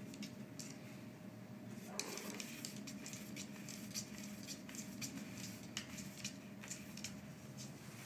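Two cats scuffling on a wooden floor as one mounts the other: faint scattered clicks of paws and claws on the boards and soft rustling, over a steady low hum.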